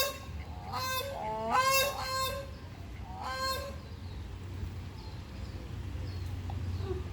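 Grey crowned crane giving a series of loud, pitched calls, about four in the first three and a half seconds, each rising and falling in pitch, then falling silent.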